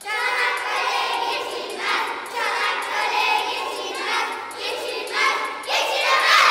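A group of young children singing together in unison, several sung phrases with the loudest swell near the end.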